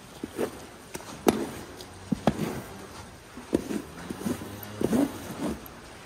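Long-handled stall scraper raking manure and sawdust bedding off a cow cubicle, making irregular scrapes and knocks a second or so apart.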